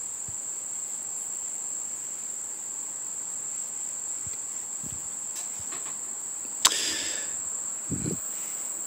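A steady, unbroken high-pitched insect trill, typical of a cricket, with a single sharp click about two-thirds of the way through and a brief low sound near the end.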